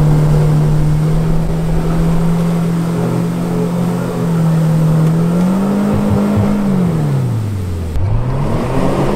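Mercury outboard motor running at steady high revs, its prop churning up mud and water in the shallows. About five and a half seconds in it revs up briefly, then winds down to a low idle; after a break near the end it revs up again.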